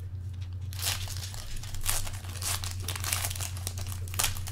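Foil wrapper of a pack of 2011 Panini Crown Royal football cards being torn open and crinkled by hand: an irregular run of crackling tears and crumples.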